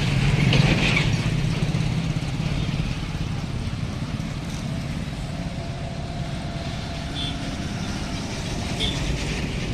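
Road traffic at a level crossing: motor vehicle engines running steadily, with people's voices mixed in.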